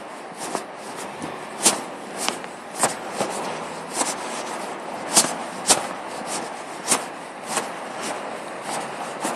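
Footsteps on a pavement while walking: sharp, irregular taps and scuffs about one or two a second over a steady hiss.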